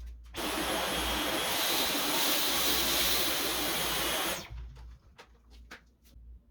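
Dyson V11 Pro cordless stick vacuum running for about four seconds, a loud rush of air with a faint high whine, then cutting off suddenly. A few light clicks follow.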